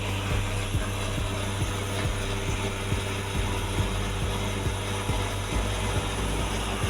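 A vehicle running along a road: a steady low hum with irregular rattling clicks throughout.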